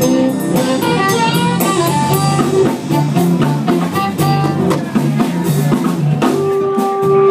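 Live blues band playing an instrumental passage: drum kit and electric guitar with steady drum strikes, no singing. About six seconds in, a long note is held.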